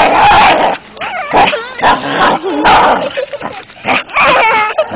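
A dog making short yips and whines while biting at a cloth, with loud rough noisy bursts near the start and about halfway through.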